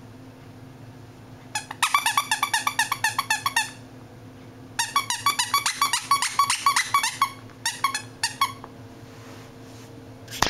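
Plush squeaky toy squeaking in fast runs of about ten squeaks a second as a puppy bites and chews it: two long runs, then a few scattered squeaks.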